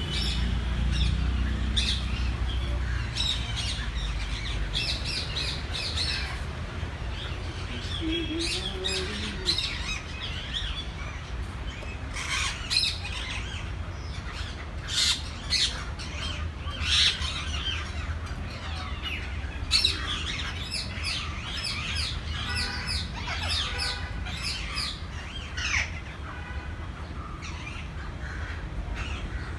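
Many birds in a zoo aviary calling at once: short, repeated squawks and chirps that overlap throughout, over a steady low rumble.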